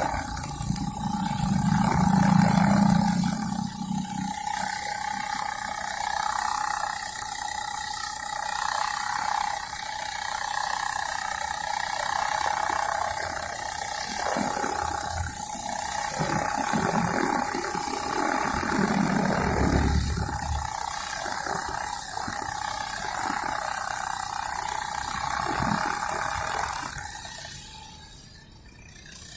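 Honda GX35 four-stroke brush cutter running steadily at working speed with a nylon string head, with a steady whine from the spinning line. The sound dips briefly near the end.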